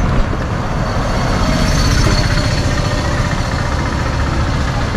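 Road traffic: motor vehicles running and idling close by, a steady low rumble.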